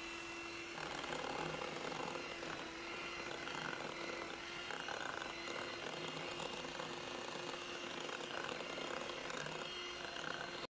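Kenwood electric hand mixer running steadily with a constant whine, its wire beaters whisking butter, sugar and egg in a glass bowl.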